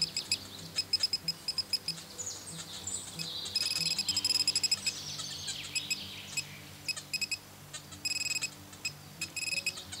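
A handheld metal detector pinpointer beeping in quick trains of short high beeps as it is worked over a small buried metal target, falling silent for a moment twice. Birds chirp in between.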